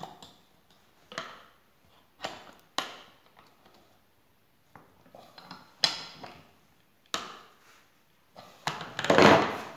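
Separate knocks and clicks, about seven of them, from a home-made hand-cranked willow-strip shave as its crank handle is fitted on its nut and the machine is handled. A longer, louder clatter comes near the end.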